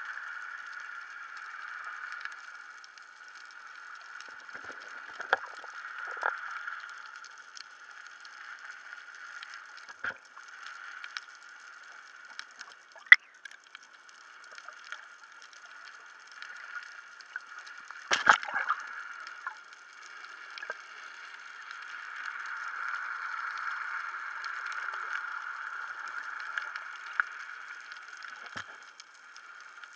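Underwater sound picked up by a submerged camera during snorkeling: a steady muffled water hiss full of faint crackling ticks, with a few sharper knocks, the sharpest about 13 seconds in.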